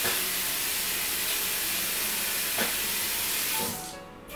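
A steady, even hiss like static or rushing air, which fades out near the end.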